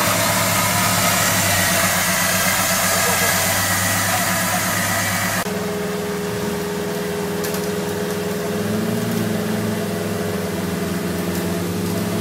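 Suzuki Jimny off-roader's engine running as it is winched slowly up a rocky trail. A loud hiss over the engine cuts off suddenly about five and a half seconds in, leaving the steady engine hum.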